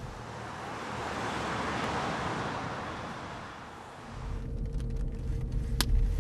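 A silver Volkswagen Golf hatchback driving past, its tyre and engine noise swelling and then fading over about four seconds. Then comes the low rumble of the moving car as heard inside its cabin, with a single click near the end.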